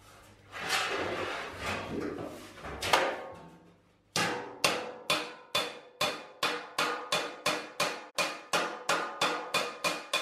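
Hammer-and-dolly work on a welded sheet-metal panel to smooth out weld heat distortion. A few seconds of scraping and handling noise with one knock come first. Then, from about four seconds in, a steady run of hammer blows rings off the metal, about two a second and quickening to about three.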